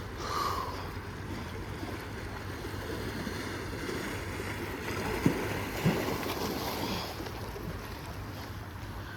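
Steady wind noise on the microphone over water sounds, with two sharp knocks a little over five and six seconds in.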